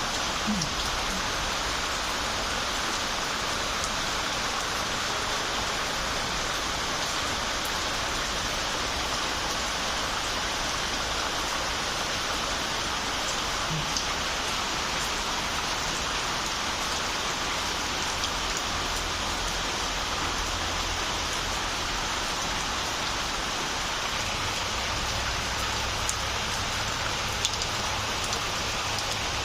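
Steady rain falling, an even hiss with a few single drops standing out.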